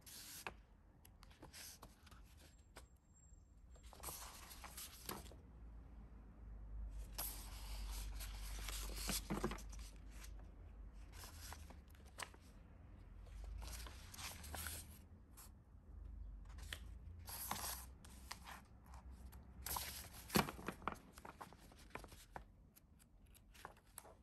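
Paper packaging being rustled and torn open by hand, in irregular bursts with a few sharp crackles, the loudest about twenty seconds in.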